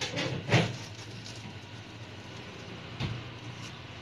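Small kitchen knife cutting watermelon flesh on a plate, with a sharp knock about half a second in and a softer one about three seconds in, over a low steady hum.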